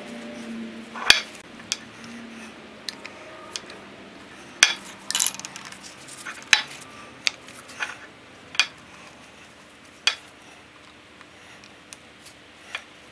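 Sharp, irregular metal-on-metal clinks and taps as a screwdriver works at the rusted screw holding a vise's steel jaw plate, with the loose metal parts knocking together.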